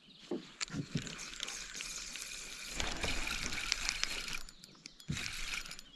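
Spinning fishing reel being cranked, a whirring with fine ratchety clicking, over running river water, with a few soft handling thumps. It pauses briefly near the end, then starts again.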